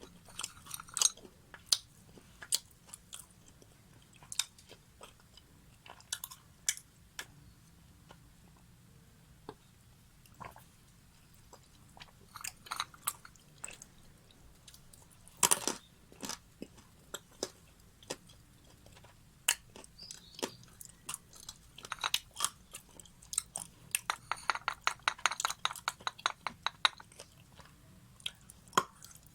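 Close-miked crunchy chewing and biting: sharp, crisp crunches come irregularly, with a dense run of rapid crunches about four-fifths of the way through.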